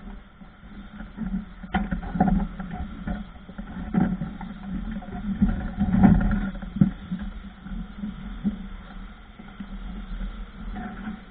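Irregular knocks and bumps from a worker moving about on a suspended work platform, with one sharp click nearly two seconds in, over a steady low rumble.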